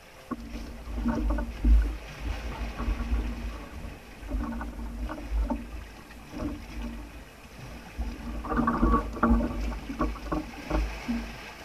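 Small outrigger fishing boat on open sea: irregular knocks and splashes of water against the hull in clusters, over low rumbling that comes in bursts.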